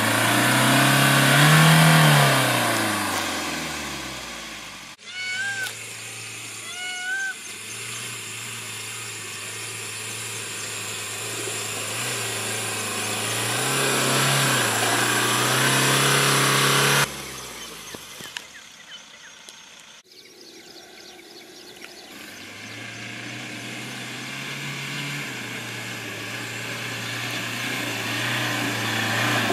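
Mahindra Scorpio's engine labouring in low gear up a steep, rutted dirt track, heard from inside the cabin, with tyre and body noise. The engine note rises and falls with the throttle and breaks off abruptly a few times.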